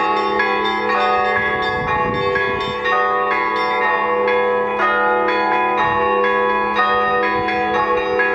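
Russian Orthodox church bells hand-rung by a single bell ringer: many bells struck in a rapid, continuous pattern, several strikes a second, over the sustained hum of the larger bells.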